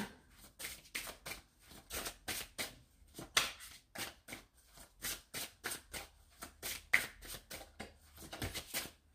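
A deck of oracle cards being shuffled by hand, with quick, even card strokes, about three to four a second.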